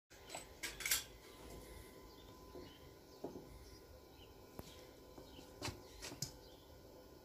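A few sharp knocks and clicks from an iron security grill door frame being handled and pressed into a doorway, the loudest cluster about a second in and single knocks spaced through the rest, over a faint outdoor background.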